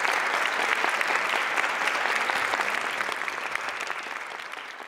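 Audience applauding at the end of a talk: a dense clatter of many hands clapping that slowly dies away over the last second or two.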